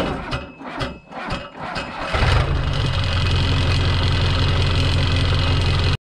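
Diesel engine of a 1998 Ford/New Holland 555E backhoe being started: about two seconds of cranking clatter, then it catches and settles into a steady idle.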